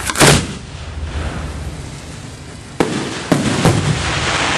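Aerial firework shells launching from mortars: a sharp bang about a quarter second in, then more bangs close together nearly three seconds in, followed by steady crackling.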